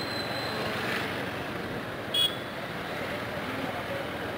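Steady noise of motorcycle traffic on a busy street, with one short vehicle-horn beep about two seconds in.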